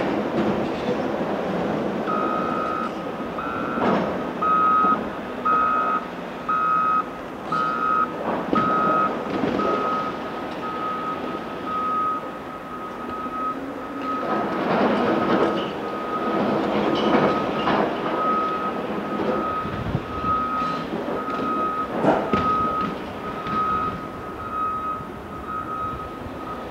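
CAT 374F hydraulic excavator digging blasted quarry rock: rocks knocking and scraping against the bucket over the running diesel engine. A vehicle's reversing alarm beeps about once a second from about two seconds in, its first beeps on two tones.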